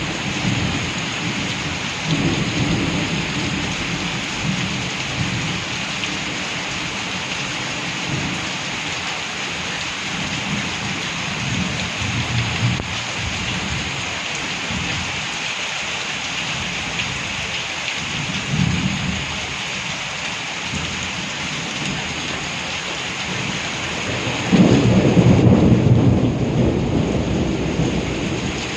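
Steady heavy rain falling, with rolling thunder rumbling several times; the loudest, longest roll of thunder comes near the end.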